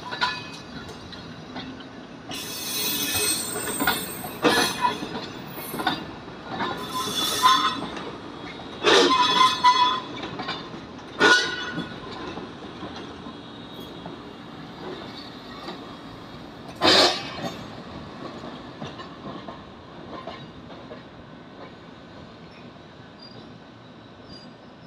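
Kotoden electric train moving slowly through depot track, its wheels squealing in a series of loud bursts on the curves and points over the first eighteen seconds, then fading to a low rumble.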